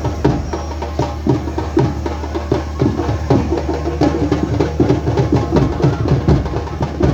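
Loud, drum-driven music with rapid percussion strokes, several a second, over a steady low hum.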